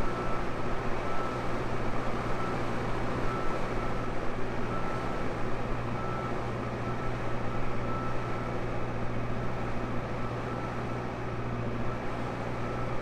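Tractor engine running steadily under load, a constant low drone with a faint high whine over it.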